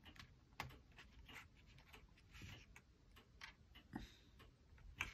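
Near silence with a few faint, irregular clicks and taps of small model parts being handled.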